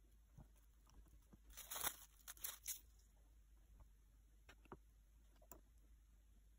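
Quiet handling noises at a craft table: a brief scratchy rustle of several strokes starting about one and a half seconds in, then a few faint light taps.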